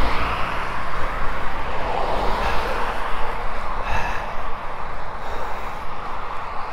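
Wind rushing over a GoPro's microphone on a moving road bike, with a low rumble, tyre and road noise, and cars passing on the road alongside.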